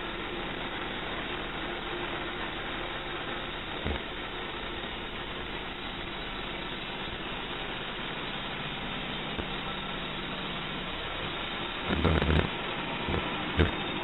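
The 11-horsepower gas engine of a homemade band sawmill running steadily. A few louder clatters come about twelve seconds in, and a sharp click comes just before the end.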